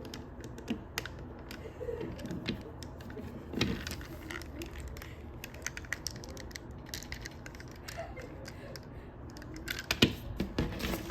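Plastic parts of a Transformers action figure clicking and tapping as it is handled, a scatter of small irregular clicks with a louder cluster near the end.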